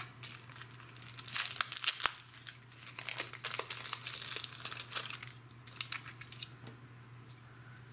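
Clear plastic packet crinkling and crackling as it is handled, a busy run of crackles that thins out about five and a half seconds in.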